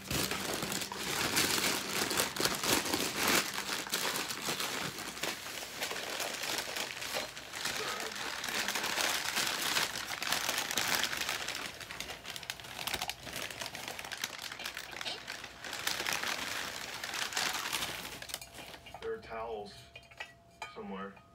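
White plastic and paper wrapping crinkling and rustling as a purchase is pulled out and unwrapped by hand, in uneven surges. It dies down near the end, when a voice comes in.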